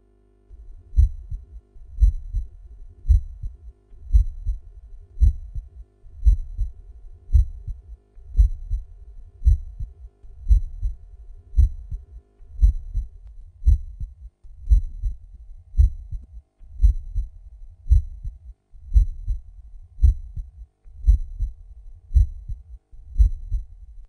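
Normal heart sounds in a steady lub-dub rhythm, about one beat a second: each beat is the first heart sound (S1) followed by the second (S2). Only S1 and S2 are heard, with no murmur or extra sounds. The sound cuts off abruptly at the end.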